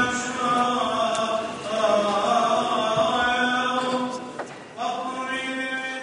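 A group of voices singing a church chant together in long held notes, with a brief break about four and a half seconds in.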